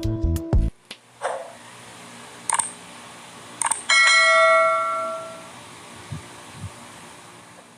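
A pop song cuts off within the first second. A few light clicks follow, then a single metallic ring like a struck bell, starting loud and fading away over about a second and a half.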